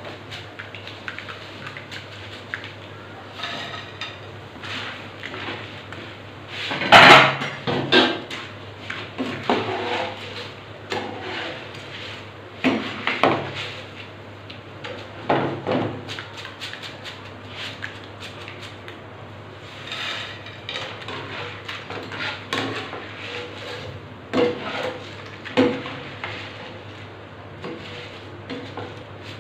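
Irregular clatter of metal kitchen utensils knocking against cookware, with scattered knocks, the loudest about seven seconds in, over a steady low hum.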